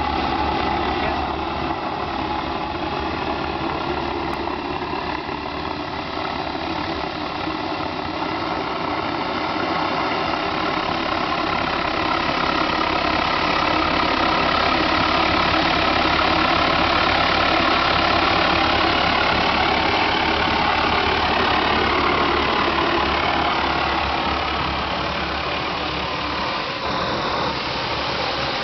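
Homemade propane-fuelled turbojet built from a turbocharger, running steadily on a test stand with a dense jet rush. It grows louder toward the middle and eases back a little near the end.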